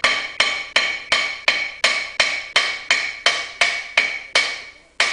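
Hammer blows on a seized, rusted rear brake rotor, nearly three a second, each strike leaving the cast-iron rotor ringing; a rust ridge inside the rotor hat, where the parking-brake shoes ride, is holding it on the hub. There is a short pause before the last blow.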